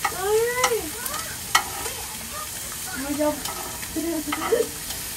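Food sizzling on a tabletop barbecue grill, a steady frying hiss, with a few sharp clicks of utensils against the grill and a couple of short hummed sounds from the woman.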